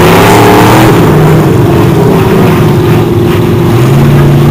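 Big John Deere mud truck's engine running loud at high revs. Its pitch rises during the first second, then holds steady.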